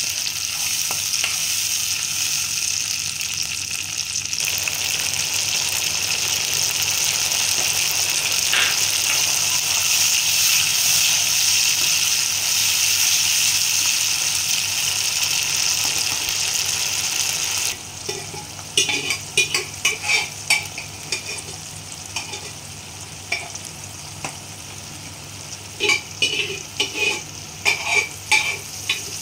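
Chopped aromatics and whole spices sizzling in hot oil in a nonstick kadhai as a metal spoon stirs them. About two-thirds of the way through, the sizzle drops abruptly to a quieter bubbling masala, broken by sharp clicks and scrapes.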